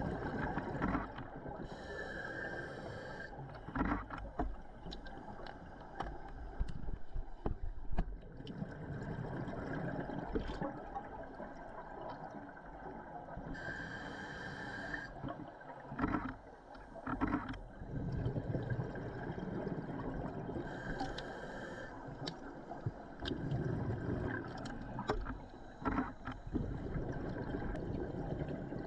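Scuba diver's regulator breathing underwater: three short hissing inhalations about a second long, with bubbling, rumbling exhalations between them.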